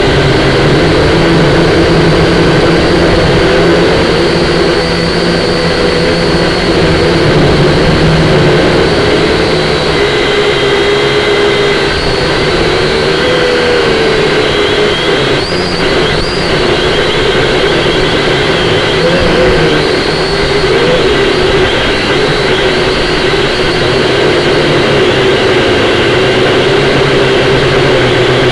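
Syma X5C-1 quadcopter's small electric motors and propellers whining steadily, the pitch wavering up and down as the throttle changes, over heavy wind noise.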